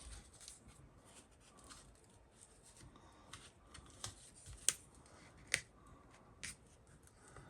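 Vinyl electrical tape being pulled off the roll and wrapped around a metal shield: a string of short crackles and snaps, with three sharper ones in the second half.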